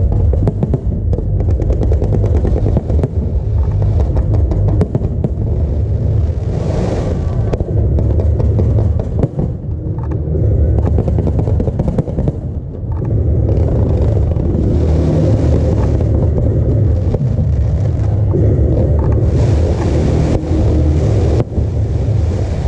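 Fireworks display: a continuous low rumble of bursting shells with dense crackling, and bouts of hissing, crackling sparks about 7, 15 and 20 seconds in.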